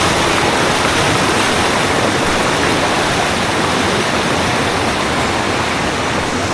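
Loud, steady rush of flowing water.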